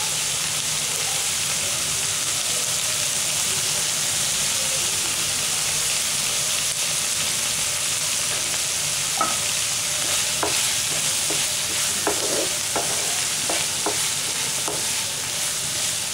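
Onions, tomatoes and herbs sizzling steadily in hot oil in a pan. From about halfway, a spatula stirs them, with a string of short scrapes and taps against the pan.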